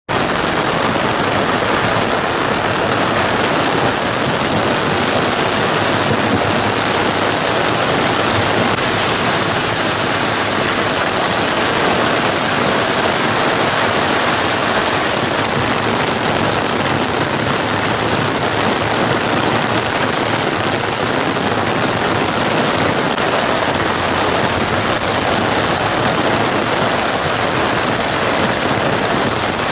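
Heavy rain pouring down on pavement and streets: a steady, dense hiss.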